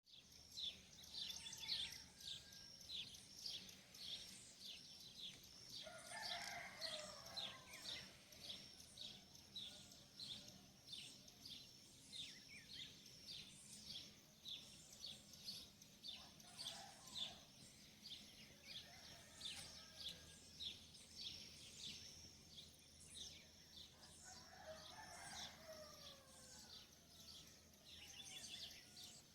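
Dawn chorus of small birds chirping rapidly and without a break, with a rooster crowing three times, about six, sixteen and twenty-five seconds in.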